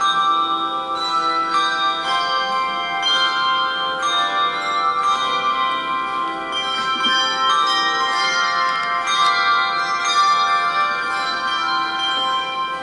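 Handbell choir playing a hymn arrangement: many handbells struck in chords and melody, their tones ringing on and overlapping, with new notes entering every fraction of a second.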